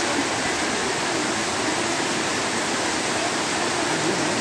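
Heavy tropical downpour: torrential rain falling, a loud, steady hiss.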